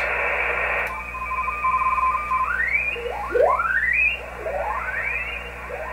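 Amateur radio transceiver's receiver audio on the 30-meter band: static hiss that drops about a second in, a steady tone near 1 kHz, then several carrier tones sweeping upward in pitch as the tuning dial is turned across the band.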